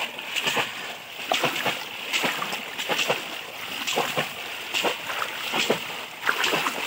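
Two conical bamboo polo fish traps being plunged again and again into shallow paddy-field water, with knee-deep wading, making repeated splashes about two or three a second, unevenly spaced.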